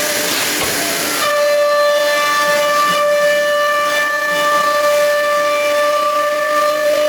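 Nesting CNC router running: a hiss of air gives way, about a second in, to a steady high whine of several tones at once, held without change.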